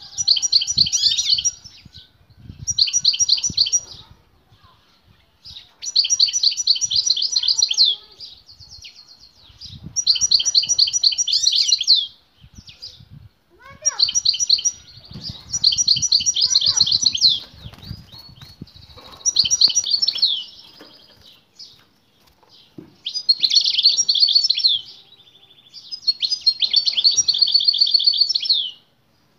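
European goldfinch singing vigorously: bursts of fast, twittering song, each one to three seconds long, with short pauses between them.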